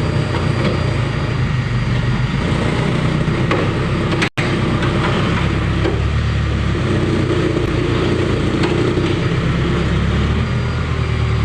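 Diesel engine of a JCB construction machine running steadily at work, a loud low rumble that swells in places.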